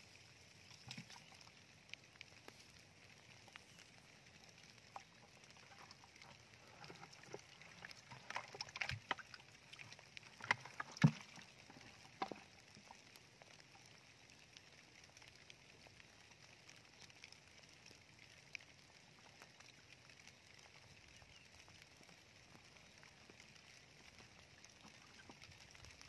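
Shallow water trickling along a narrow, muddy channel. A short run of splashes and sloshes comes about a third of the way in, the loudest near the middle.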